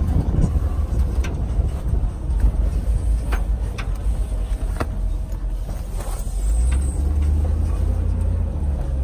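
Low engine and road rumble of an open-air tour truck driving over a sandy track, heard from its rear seating, with scattered knocks and rattles. The rumble grows louder about two-thirds of the way through.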